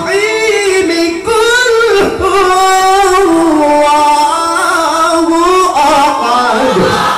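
A male qari reciting the Quran in the melodic tilawah style into a handheld microphone. He holds long, ornamented notes high in his voice, the pitch gliding and wavering, with only a short break for breath about a second in.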